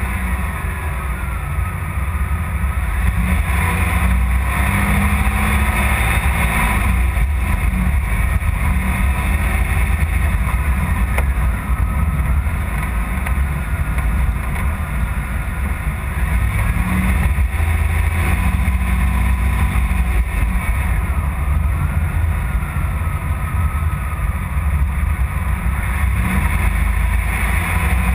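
Freshly rebuilt 3.4-litre V6 of a 1994 Chevrolet Camaro running steadily as the car drives along, heard from the front of the hood.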